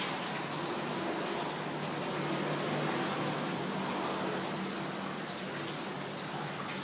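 Water running steadily, an even continuous hiss with no breaks.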